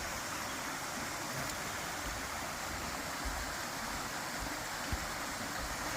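Steady rush of flowing stream water, with a few brief low thumps on the microphone around the middle.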